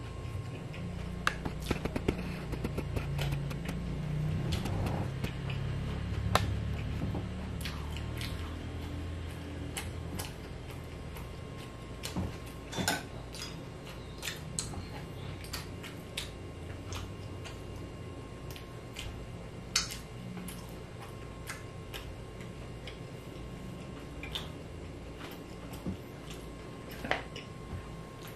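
Close-miked chewing of a mouthful of food with the mouth closed, with wet mouth clicks and smacks scattered throughout. Near the end come a few light taps of a bamboo skewer and dishes.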